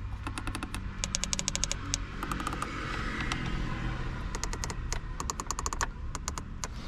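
Physical buttons on a Porsche 718 Cayman GT4 RS's dashboard being pressed again and again, giving quick runs of sharp clicks in several bursts.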